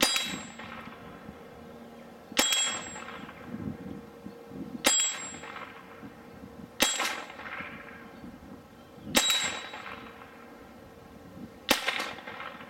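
Six shots from a Browning Buck Mark .22 pistol, about two seconds apart, each followed by a short metallic ring from the hanging steel target being hit.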